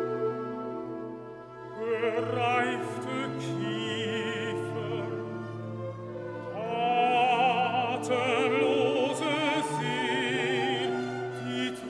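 Orchestral art song: a baritone sings with vibrato over a symphony orchestra. The voice enters about two seconds in over soft sustained orchestral chords and swells to a loud held note a little past the middle.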